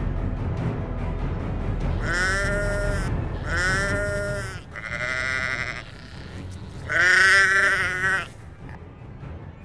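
Sheep bleating: four drawn-out calls about a second each, the last the loudest. A low music bed runs under the first half and fades out.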